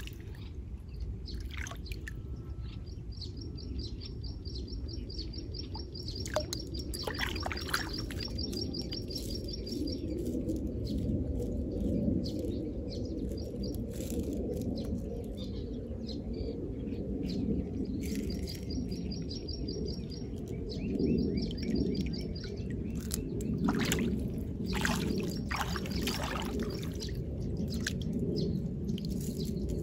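Water splashing and sloshing as hands rinse an opened freshwater pearl mussel in shallow water, with small clicks and splashes throughout. A bird trills in two stretches, from about three seconds in and again past the halfway mark.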